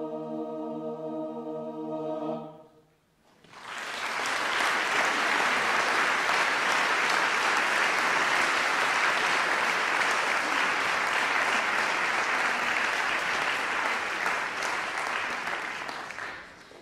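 An a cappella choir holds its closing chord and cuts off about two and a half seconds in. After a moment's pause the audience applauds, steady and loud for about twelve seconds, and the applause dies away near the end.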